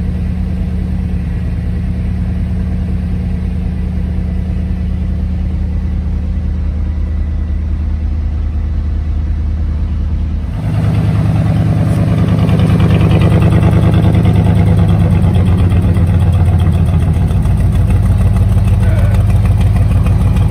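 1986 Ford F-150 engine idling steadily, just brought back to life after sitting for 15 years and running on old gas; it doesn't sound too bad. Heard at first from inside the cab, then louder and fuller from about halfway through, as heard out by the tailpipe.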